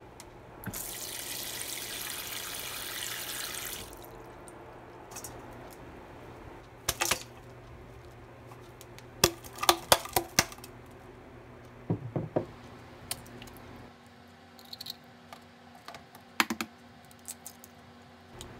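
A few seconds of running tap water, then scattered clinks and knocks as chopped vegetables are tipped from a glass dish into a stainless steel mixing bowl.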